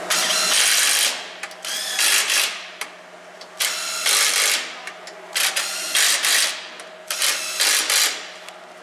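Makita 18V cordless impact wrench running lug nuts onto a steel wheel's studs in a series of short bursts, one nut after another.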